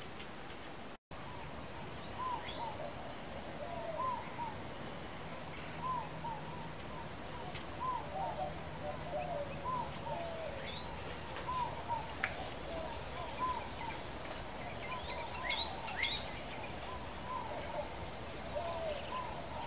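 Birds calling outdoors with short, repeated chirps and a few higher sweeping notes, over a steady, evenly pulsing insect trill.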